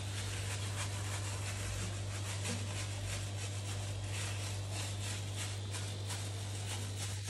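A hand rustling and scraping through wood-shaving bedding on the glass floor of a tank, spreading it out in a run of short scratchy rustles. A steady low hum runs underneath.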